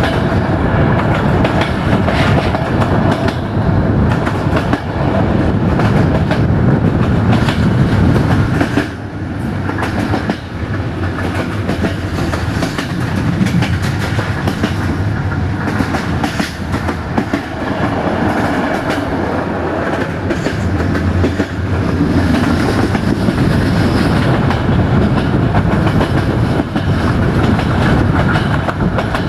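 Passenger train running along the line, heard from aboard: a steady rumble of the coach's running gear with wheels clattering over the rail joints.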